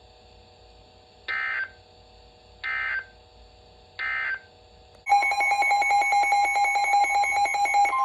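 NOAA Weather Radio Emergency Alert System signal: three short, buzzy bursts of SAME digital header data, then about five seconds in a loud, rapidly pulsing alarm tone starts. This is the alert that marks a new warning being issued.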